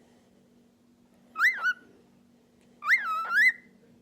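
Cockatiel whistling two short swooping phrases, one about a second and a half in and a longer one near the end, each note rising to a peak and falling back.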